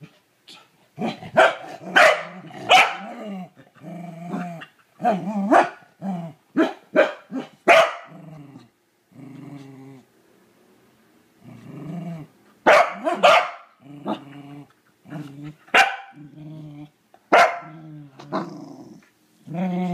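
Welsh corgi barking and growling at a toilet brush in repeated bouts: sharp barks mixed with lower, held growls. There is a quieter lull about halfway through.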